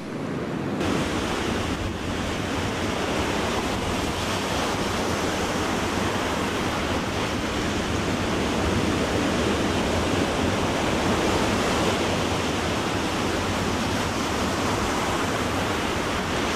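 Ocean surf breaking on a sandy beach, a steady rushing noise with wind mixed in, the swell still high after a storm.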